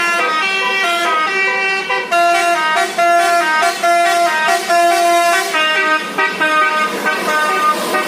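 Indonesian telolet 'basuri' musical bus horn playing a tune, a loud run of held notes stepping up and down in pitch with some quick repeated notes.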